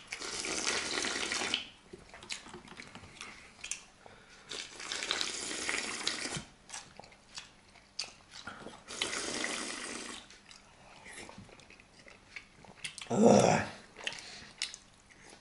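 Noisy slurping of instant noodles and broth from plastic bowls: three long sucks of about a second and a half each. Small clicks, from forks against the bowls, fall between them, and one short, louder, deeper sound comes near the end.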